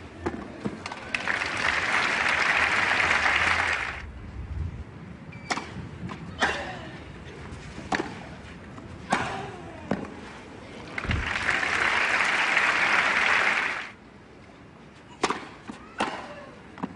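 Tennis balls struck by rackets in rallies on a clay court, sharp pops a second or so apart, with two spells of crowd applause a few seconds long after points are won.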